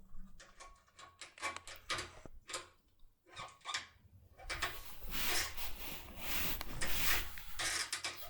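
Locksmith's opening tool being rocked and jerked in a Dierre New Power cylinder lock: a run of short metallic clicks and scrapes, turning into a denser, steady rasping about halfway through.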